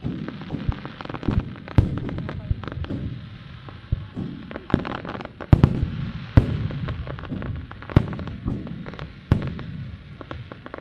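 Fireworks display bursting in a dense, irregular barrage of sharp bangs, several going off within a second of each other. The loudest bangs come a little past the middle.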